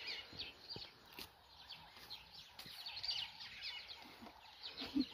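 Small birds chirping in clusters of quick, high, falling notes, with a few faint snaps as leaves are picked off a hedge.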